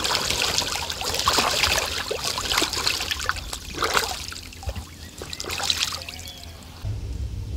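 A domestic duck bathing in a pond, splashing water in irregular bursts as it dips and flaps. The splashing dies down about six seconds in.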